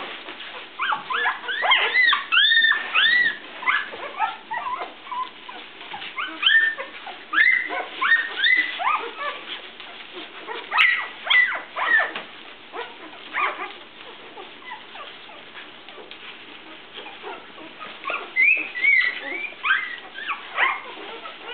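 Newborn golden retriever puppies, only days old, squeaking and whimpering: many short, high cries that rise and fall in pitch, often overlapping, in busy bouts with a quieter stretch past the middle.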